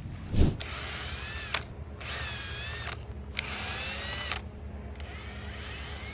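Power drill run in four short bursts of about a second each, its motor whine sweeping up and down in pitch as the trigger is squeezed and eased. A low thump comes just before the first burst.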